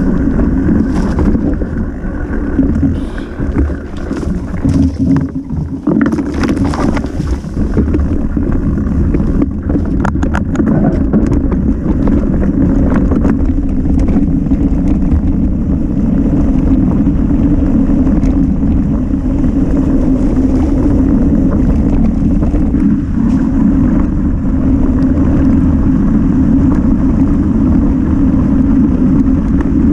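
Mountain bike riding down a trail: steady rushing tyre and wind noise on the microphone, with a spell of rattling and clatter over rough ground between about six and thirteen seconds in.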